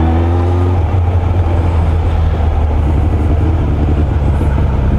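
Suzuki Bandit inline-four motorcycle engine pulling with rising pitch, which breaks off under a second in as the rider shifts gear, then running steadily under road and wind noise.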